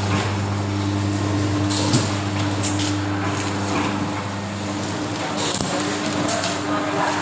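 Cup water filling and sealing machine running with a steady hum, broken by a few brief clacks from its mechanism as cups are sealed.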